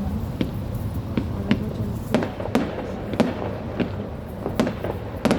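Fireworks going off: about a dozen irregular sharp bangs and cracks over a steady low rumble.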